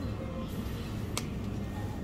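Background music, with a single light tap about a second in as a paper-bagged roasted sweet potato is set into a plastic shopping basket.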